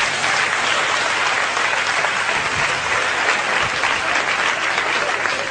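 Audience applause: many people clapping together in a dense, steady clatter.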